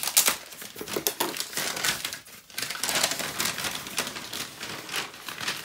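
A USPS Priority Mail shipping mailer crinkling and rustling as it is opened and handled, with a string of irregular crackles and clicks and a brief lull about halfway through.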